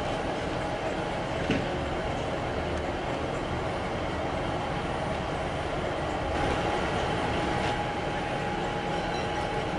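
Diesel multiple unit's engine running steadily at the platform, a continuous drone with a steady hum, growing a little louder about six seconds in. A single short knock sounds about a second and a half in.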